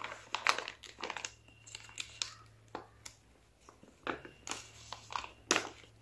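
Clear polythene bag crinkling and rustling in short, irregular bursts as it is handled and opened by hand.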